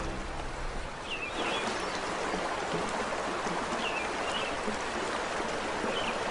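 River water rushing, a steady hiss that comes up about a second in, with a few short bird chirps over it.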